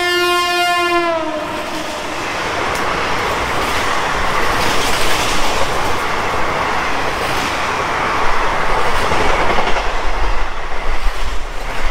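Passenger train's horn holding one long note that ends with a slight drop about a second in. Then the train of coaches runs past the platform with a steady rushing clatter, and a deeper rumble builds near the end.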